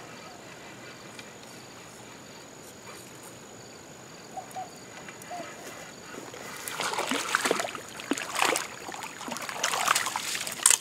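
A hooked channel catfish thrashing at the surface as it is brought to the bank: a run of loud, irregular splashes starting a little past halfway and growing toward the end.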